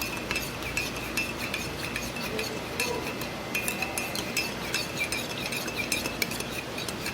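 A spoon stirring lemon juice and sweet soy sauce in a drinking glass, clinking against the sides many times with a light ring.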